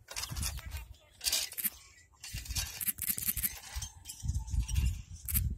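Irregular scrapes and clinks, then from about two seconds in low, uneven bumping and rubbing of fingers over the phone's microphone as the phone is handled.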